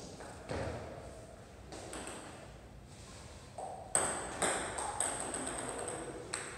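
Table tennis ball clicking off paddle and table: a run of sharp, quick clicks starting about four seconds in as a serve is struck and the ball bounces across the table, after a few duller knocks earlier.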